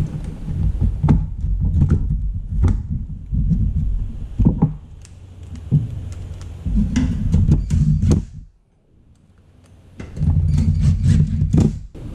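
Cordless electric screwdriver running in short bursts to drive the screws holding a graphics card's bracket into a steel PC case, mixed with clicks and knocks of parts being handled. It goes briefly quiet about two thirds of the way through.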